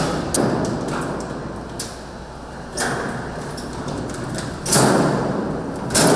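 A few heavy thuds and scraping knocks, the loudest about three-quarters of the way in, each echoing on in a large concrete basement.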